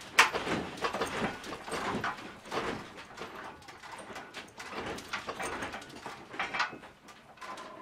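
Household objects, doors and fittings rattling, creaking and knocking as an apartment shakes in a strong earthquake, with irregular clicks throughout and a sharp knock just after the start.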